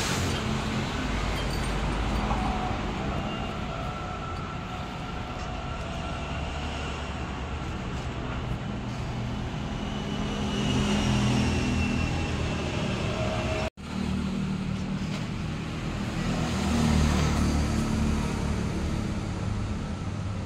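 Road traffic going past, a steady engine hum that swells twice as vehicles pass; the sound cuts out for an instant about two-thirds of the way through.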